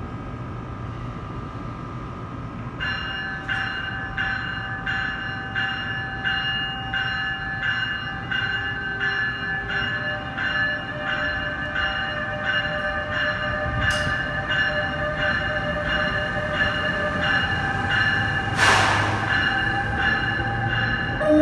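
Bombardier ALP-46A electric locomotive pulling out with its bell ringing at an even beat, starting about three seconds in, over the hum of the locomotive and the train rolling closer. A short hiss of air near the end.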